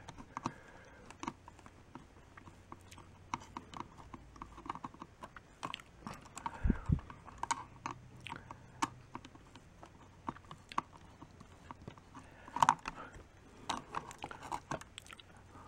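Irregular small clicks, taps and plastic rattles as a power-supply circuit board and its wires are worked loose inside the plastic case of a portable jump-starter power pack, with a duller bump about seven seconds in and a sharper click a little before the end.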